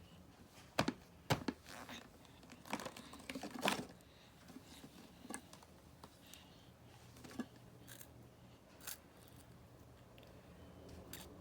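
A bag of chips crinkling and chips crunching: sharp crackles in irregular clusters, thickest in the first four seconds and sparser after.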